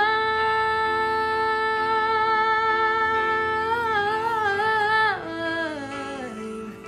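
A woman singing solo, holding the long final sung note on the word "mine". The note holds steady, wavers slightly about four seconds in, then slides down in pitch and fades out near the end.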